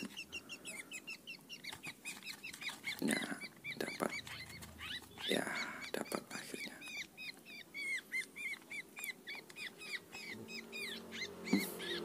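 A small bird chirping rapidly and repeatedly, short high chirps about three or four a second, while a brown paper bag is crumpled and rustled by hand, the rustling loudest a few seconds in.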